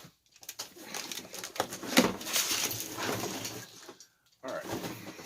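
Cardboard and plastic packaging being handled and pulled about: a run of rustling and crinkling with small knocks, loudest about two seconds in and stopping about four seconds in.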